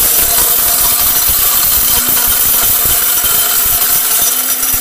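Electric spice grinder running steadily as it grinds dried turmeric into powder.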